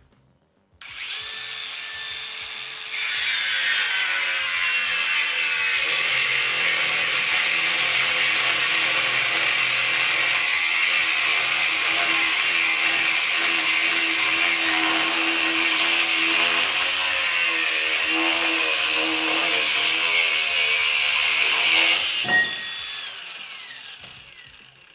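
WORX cordless angle grinder spinning up about a second in, then its cut-off disc biting into 12 mm steel plate and cutting steadily for about twenty seconds without bogging down or stalling. A short knock near the end, then the motor winds down.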